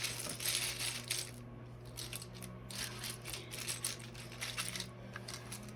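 Small plastic building-brick pieces clicking and rattling against each other as they are handled and tipped out, in scattered light irregular clicks.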